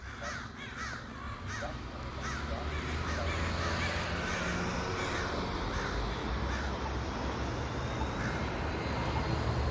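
Crows cawing: a quick run of short harsh calls, several each second at first and thinning out after about seven seconds, over a steady low rumble that grows louder about three seconds in.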